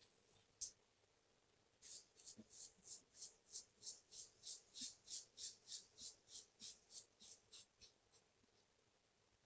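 GEM push-button single-edge safety razor scraping across lathered stubble in a run of short, quick strokes, about three a second, faint; a single click comes just before the strokes begin.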